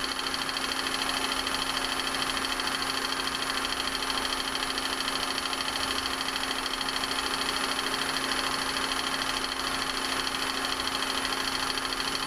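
Powermatic 3520 wood lathe running with its vacuum chuck's pump: a steady mechanical hum with several high, even whining tones.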